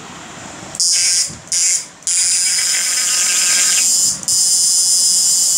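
Homemade IGBT electro-fishing machine running with its electrode in a bucket of water, giving a loud, high-pitched buzzing hiss. It switches on about a second in and cuts out briefly three times.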